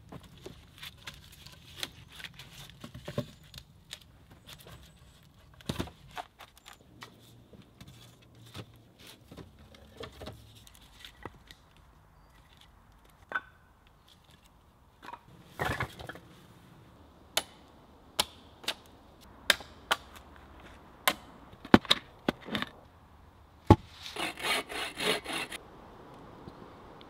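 Wooden logs and poles knocking and clattering together as they are handled and stacked, in scattered sharp knocks, with a short rapid run of strokes near the end.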